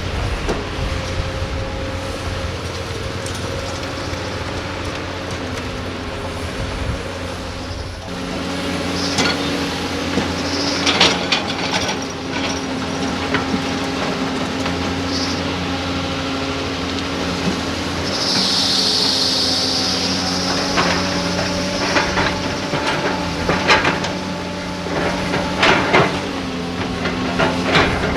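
Excavator diesel engines running under load while digging and loading sand and rock, the engine note stepping up about eight seconds in. Knocks and clanks of rock against steel come through, with a hiss lasting about two seconds near the middle.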